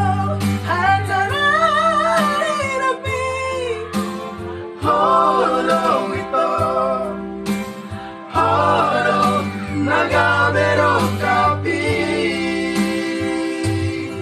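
Several male voices singing a melody together into a microphone, accompanied by a Yamaha electronic keyboard holding sustained chords and bass notes, with short breaks between sung phrases.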